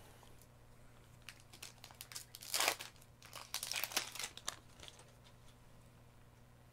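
Foil wrapper of a Digimon Card Game BT07 booster pack crinkling and crackling in the hands as it is handled and the cards are taken out, in a string of small rustles with the loudest just past two and a half seconds in. The rustling stops about five seconds in.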